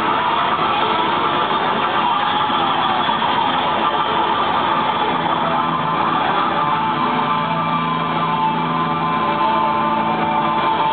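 Heavy metal band playing live at high volume, with distorted electric guitars over a dense, continuous wall of sound heard from within the crowd.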